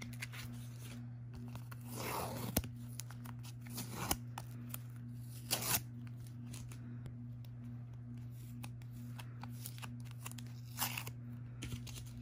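Handling noise from unpacking a photocard in a clear plastic toploader: a few short rustling, tearing scrapes of paper and plastic, the longest about two seconds in and others around four, five and a half and eleven seconds in. A steady low hum runs underneath.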